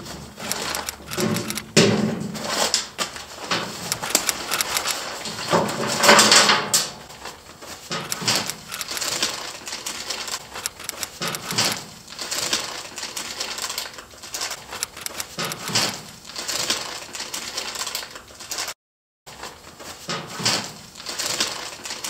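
Plastic zip-top bags crinkling and rustling, with small items clicking and knocking on a hard tabletop as a bag of camping gear is emptied and sorted. The loudest crinkle is about six seconds in, and the sound drops out for a moment near the end.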